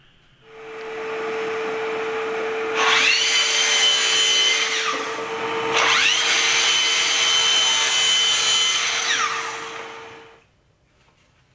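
An electric power tool starts up and runs with a steady hum, and is twice worked hard against the material for a few seconds at a time, each spell adding a high, ringing squeal. It stops about ten seconds in.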